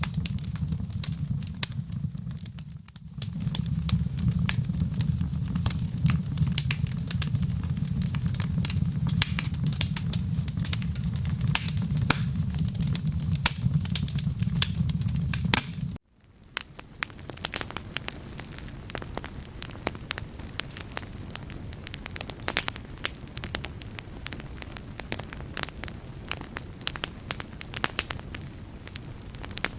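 Wood fire crackling with dense, irregular pops and snaps over a low steady rumble. The rumble cuts off abruptly about halfway through, leaving quieter crackling alone.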